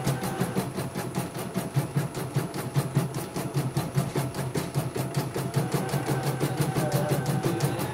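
CNY portable embroidery machine stitching a design: a fast, even run of needle strokes over the steady hum of its motor.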